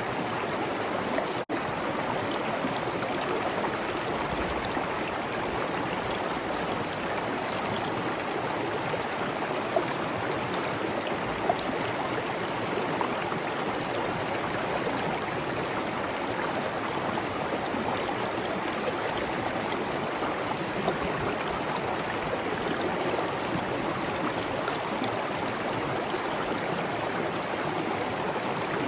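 Waterfall: a steady, dense rush of falling water, with a momentary dropout about a second and a half in.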